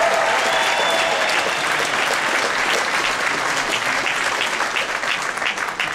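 Audience applauding, with shouts and whoops in the first second or so; the clapping slowly dies down toward the end.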